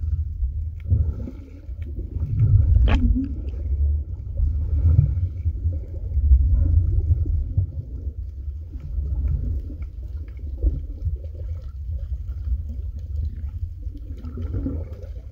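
Muffled, surging low rumble of water moving over a phone's microphone held underwater, with faint ticks and one sharper click about three seconds in.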